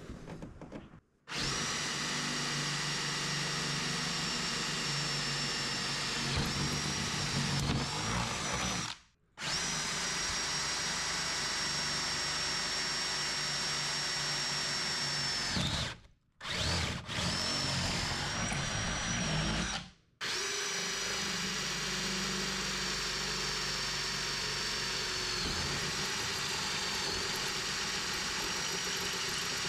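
Power drill with a 1/4-inch bit drilling pilot holes through lower door armor into a Jeep Cherokee XJ door, a steady high whine in four long runs, each cutting off abruptly.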